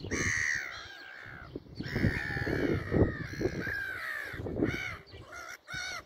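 Gulls calling: harsh, drawn-out cries in the first half, then a run of short, quick calls near the end.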